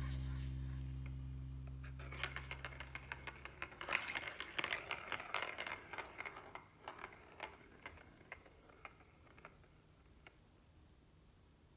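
Light, irregular clicking and rattling from a plastic ball-track cat toy. The clicks come thickest a few seconds in, then thin out and stop. A low lingering music note fades away at the start.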